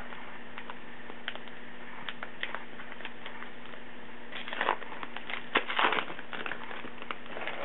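Baseball cards being handled: soft rustling and crinkling with scattered small clicks, busiest around the middle, over a faint steady hum.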